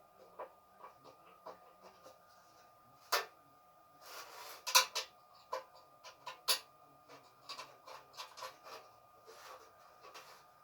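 Metal parts of an LPG gas stove handled during reassembly: irregular clicks, knocks and a brief scrape as parts are set in position and screws are started. Three sharper knocks stand out through the middle.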